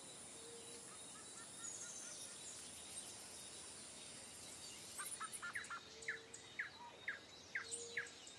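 Birds calling over faint outdoor ambience. From about five seconds in, one bird repeats a short falling whistle about twice a second.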